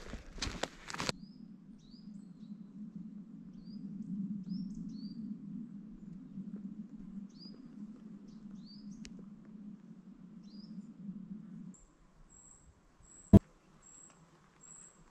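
Footsteps crunching on the woodland floor for the first second, then small birds giving short, high chirps over a faint steady low hum. Near the end a thin, high call repeats several times, and one sharp click stands out about 13 seconds in.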